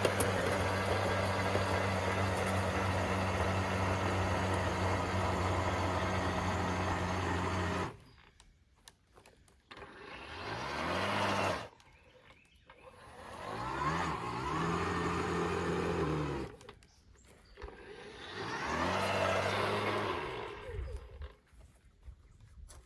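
Electric power tool motor running steadily for about eight seconds, then stopping abruptly; three shorter runs follow, each spinning up in pitch, holding, and cutting off.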